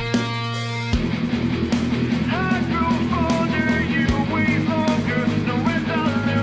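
Background rock music, a held guitar chord, then a fast driving beat with a melody line coming in about two seconds in.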